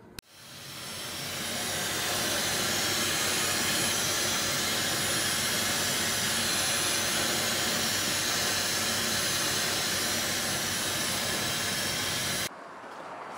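Handheld hair dryer switched on with a click, spinning up over about a second, then blowing steadily with a thin high whine over the rush of air. It stops abruptly near the end.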